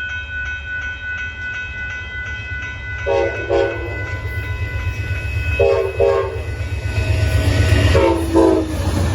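Amtrak locomotive horn sounding three pairs of short blasts, over the low rumble of the train drawing closer and louder. A crossing bell rings in a steady pulsing rhythm during the first couple of seconds.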